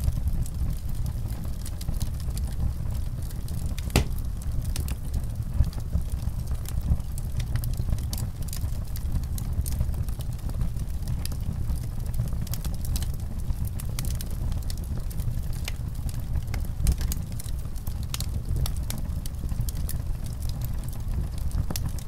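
Fire burning with a steady low rumble and frequent sharp crackles and pops, a few of them louder, the first about four seconds in.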